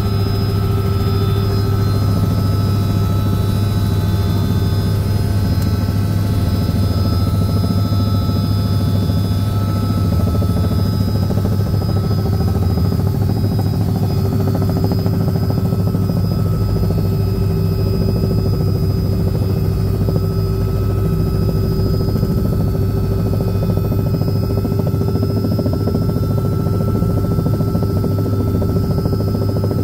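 Small helicopter in flight, heard from inside the cabin: a steady low drone of rotor and engine with a steady high whine on top.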